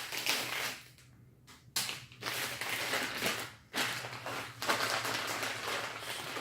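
Packaging wrap crinkling and rustling in irregular bursts as aftermarket camshafts are unwrapped by hand, with a brief pause about a second in.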